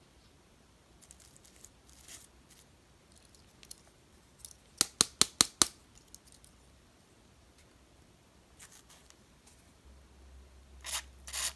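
Small metal clicks from a Leatherman Squirt PS4 multi-tool being handled and worked, with a quick run of about six sharp clicks around five seconds in and a few scattered ticks elsewhere.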